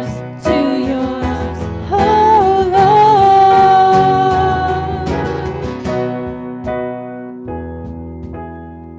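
A song with a singing voice, guitar, keyboard and drums; a singer holds one long note in the middle, then the music thins out and gets quieter.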